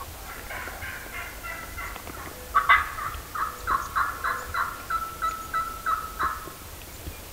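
Wild turkey gobbling. The loud burst comes about two and a half seconds in and runs into a series of pulsed notes, roughly three a second, that stops a little after six seconds. Fainter calls come in the first two seconds.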